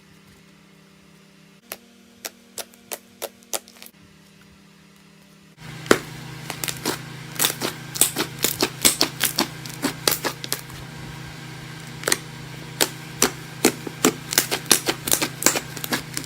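Slime being worked by hand, making sharp clicking pops. The pops are spaced out at first, then come fast and dense from about a third of the way in, over a steady low hum.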